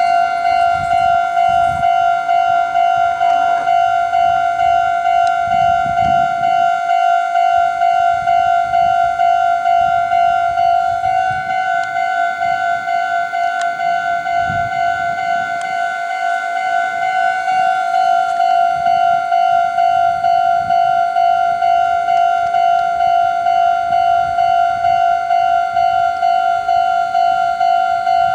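Japanese railway level-crossing alarm ringing: an electronic bell striking over and over in a fast, even rhythm on one fixed pitch. It is the warning that a train is approaching and passing through the crossing.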